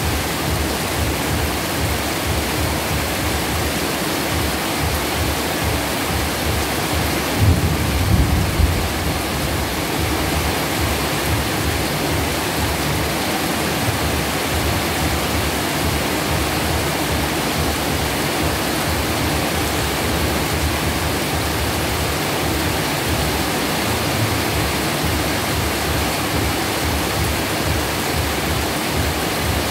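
Heavy rain falling steadily, an even hiss, with a brief low rumble about a quarter of the way in.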